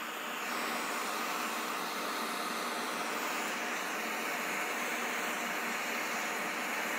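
Handheld gas blowtorch burning with a steady hiss as its flame is swept over raw squid slabs to sear their surface.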